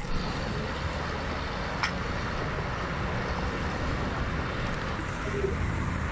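Steady road traffic noise from tanker trucks and cars running on the road ahead, with one short click about two seconds in.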